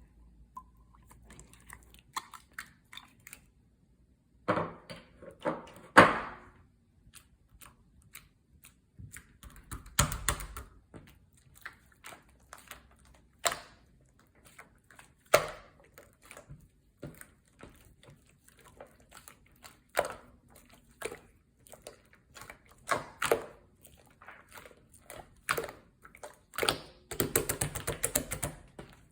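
Slime being squeezed and pressed by hand: scattered sticky clicks, pops and squelches, with a dense run of crackling pops near the end.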